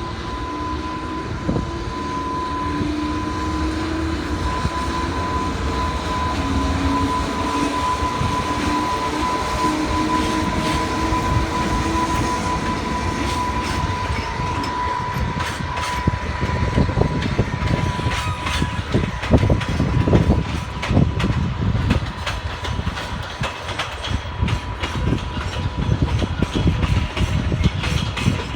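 An electric freight train rolling past. For about the first half a steady high tone and a shifting whine sound over the rumble. After that the wagons' wheels clack repeatedly over the rail joints.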